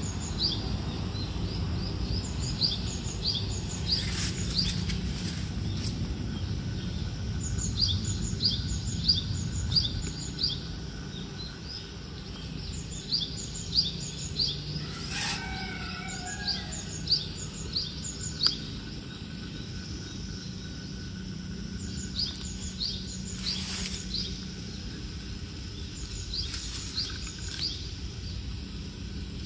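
Small birds chirping in quick runs of short, high, falling notes, several runs with pauses between, over a steady low hum of dawn ambience.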